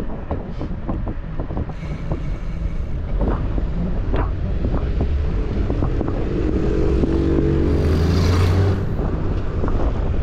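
Wind rushing over the microphone and steady traffic rumble while riding a bicycle alongside a road; from about halfway through, a passing motor vehicle's engine hum builds and is loudest near the end.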